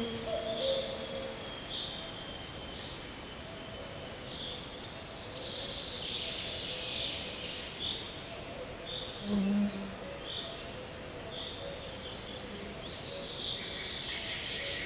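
Small songbirds singing over a steady outdoor hiss: one bird repeats a short high chirp about once a second, and others break into dense twittering about a third of the way in and again near the end. A brief low sound about two-thirds through is the loudest moment.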